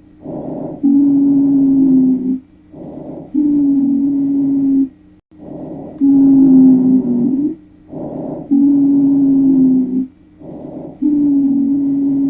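Lung sounds heard through a stethoscope, about one breath cycle every two and a half seconds. Each cycle is a short, softer breath followed by a longer, louder one carrying a steady low musical tone. That tone is a low-pitched (sonorous) wheeze, a pathological continuous breath sound.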